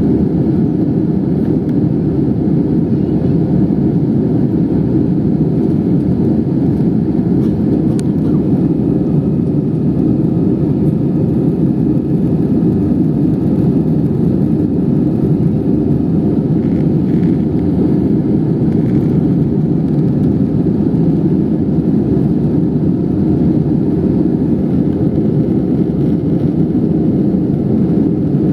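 Steady rumble of engine and airflow noise inside the cabin of an Airbus A320 with CFM56-5B engines, holding an even level throughout.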